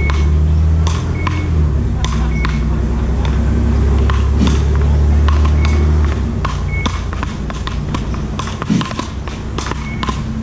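A beach racket rally: a ball struck back and forth with wooden paddles, sharp hits at irregular intervals, many with a brief high ping. A low rumble runs under the hits and stops about six seconds in.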